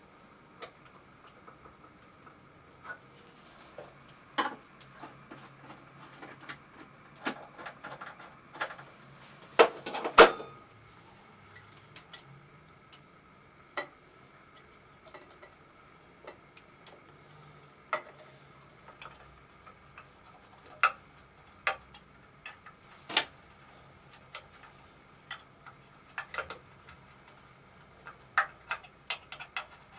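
Sparse metallic clicks and clinks of hand tools and parts on a vintage Vespa's bodywork as it is assembled: a wrench on a nut, horn wiring being fitted, and a screwdriver turning the horn-grille screws. The loudest run of clinks comes about ten seconds in, over a faint steady hum.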